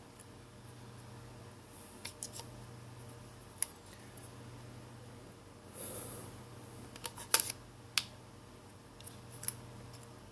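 Scattered light plastic clicks and taps from handling a Samsung Galaxy J5 smartphone, the sharpest three about a third of the way in, around two-thirds in and soon after. The phone is being tried after its battery connector was cleaned, and it does not turn on. A faint steady hum sits underneath.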